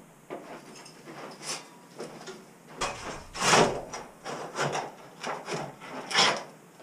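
A shovel scraping and pushing stone demolition rubble across the floor in a run of rough strokes, starting a little before halfway through; before that, only a few faint knocks.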